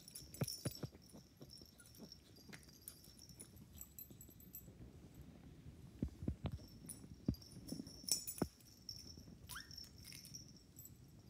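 A cat and a beagle puppy play-wrestling on a rug: scuffling and soft thumps, with the light jingle of collar and harness tags. One short squeak rises in pitch near the end.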